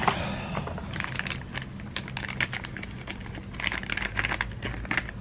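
A small parts box and a clear plastic bag being handled and opened: quick, irregular clicks and crinkles in short clusters.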